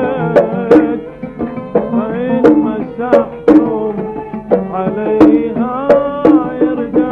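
Instrumental passage of Kuwaiti sawt music: an oud plays a gliding melody over sharp, irregular strikes of a small double-headed hand drum (mirwas).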